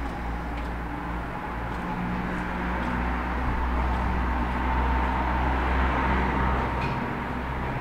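Road traffic: a motor vehicle passing close by, its engine hum and road noise swelling over the middle and easing off near the end.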